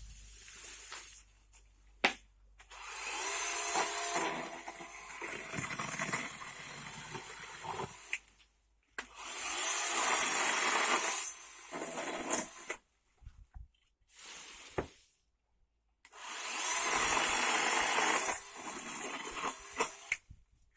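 Parkside 20 V cordless electric chainsaw running and cutting through branches in three bursts of several seconds each, with short pauses between them.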